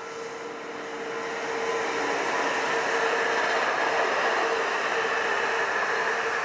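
Container freight train passing: its rolling noise builds over the first couple of seconds as the locomotive draws level, then holds as a steady rush of wagons rolling on the rails, with a steady hum underneath.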